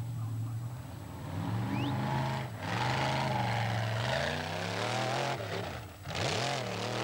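Formula offroad buggy's engine revving hard as it claws up a steep dirt slope, its pitch rising and falling again and again, with its tyres churning and spraying dirt. The engine note drops away briefly about two and a half seconds in and again about six seconds in.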